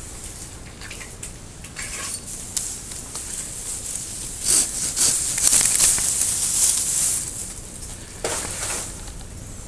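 Japanese maple leaves and twigs rustling and crackling as the branches are pushed aside and handled. It is loudest in a long swell through the middle, with another short burst near the end.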